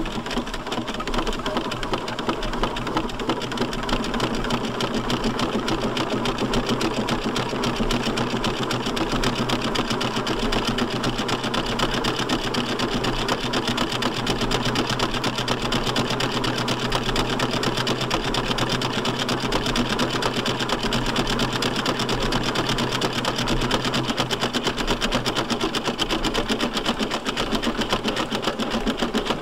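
1901 Burrell agricultural steam traction engine running, with a fast, even clatter of exhaust beats and motion work. It grows a little louder over the first several seconds, then holds steady.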